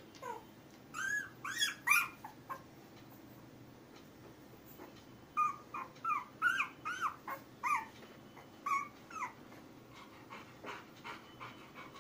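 Ten-day-old Labrador puppy squealing and whimpering in short cries that rise and fall in pitch: a few about a second in, then a longer run of them from about five to nine seconds.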